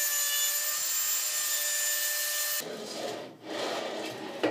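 A Dremel rotary tool grinding welds flat on a steel drawer slide: a steady high whine with grinding hiss that cuts off about two and a half seconds in. Then the carriage is slid back and forth on the ball-bearing drawer slides in two rubbing runs, with a click near the end.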